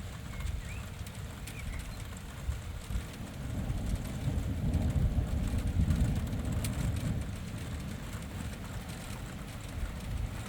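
Wind buffeting the microphone, a gusty low rumble that swells for a couple of seconds midway, with a few short bird chirps.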